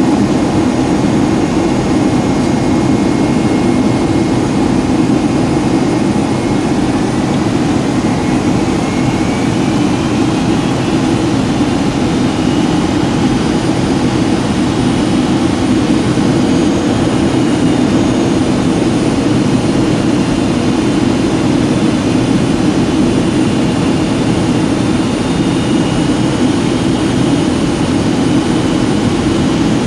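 Boeing 757-200 in flight, heard from the passenger cabin: a steady roar of jet engines and airflow. A faint high whine glides up in pitch about a quarter of the way in, then holds.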